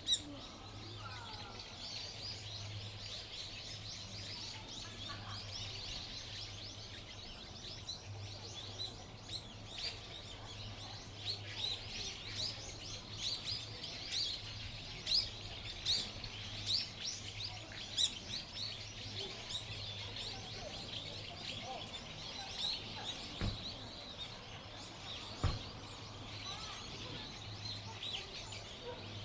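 Small birds chirping: a busy stream of short, high, quickly falling calls, thickest in the middle, over a steady low hum. Two dull thumps come near the end.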